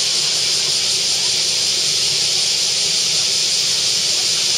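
A steady, high-pitched hiss that stays even without any change.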